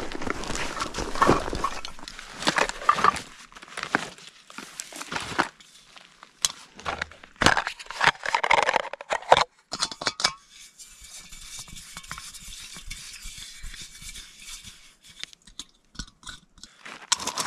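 Camping gear being handled: backpack fabric rustling and crinkling, with clinks of cookware. A backpacking stove is then fitted onto a fuel canister, with small scattered metal clicks.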